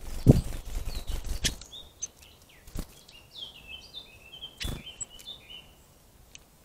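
A small bird attacking a trail camera: a quick run of close knocks and bumps against the camera, then rapid chirping calls broken by two more knocks.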